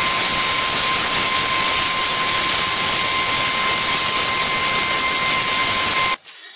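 CNC plasma cutter's arc cutting steel plate: a loud steady hiss with a thin high whine, stopping abruptly near the end.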